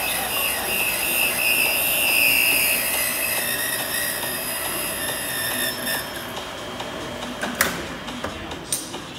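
Valve refacing machine's grinding wheel cutting the face of a Toyota 4A engine valve: a high-pitched squealing whine over a hiss. It eases off after about six seconds, and a few sharp clicks follow near the end.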